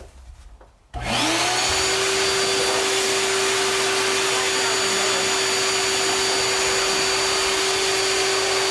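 Electric blower switched on about a second in, its motor whine rising as it spins up and then holding steady over a loud rush of air, blowing sanding dust off a wood carving.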